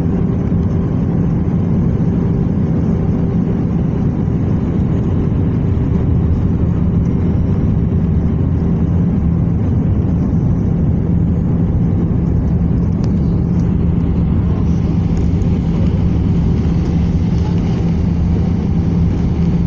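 Cabin noise of a jet airliner descending on approach: a steady rush of engines and airflow with a constant low hum.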